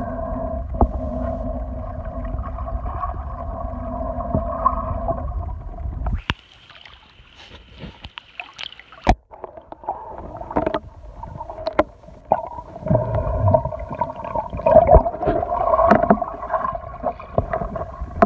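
Muffled underwater sound picked up by a phone held below the surface: a steady low rumble of water moving around the microphone. It drops away suddenly about six seconds in, then returns unevenly with scattered clicks and knocks.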